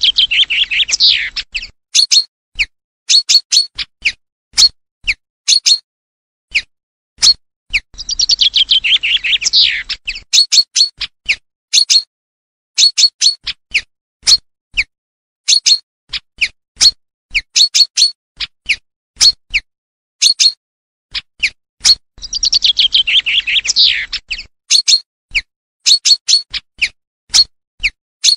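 Common chaffinch song, a recorded hunting lure: three descending trills, each about two seconds long and falling away into a final flourish. Between them come short, sharp call notes repeated steadily about every half second.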